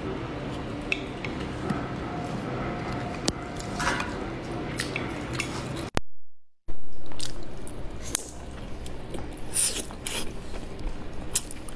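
Close-miked eating sounds: sticky rice dumplings being chewed, with many small wet mouth clicks and smacks and chopsticks picking at the dumplings. The sound cuts out abruptly for under a second about halfway through, then the sharper clicks resume.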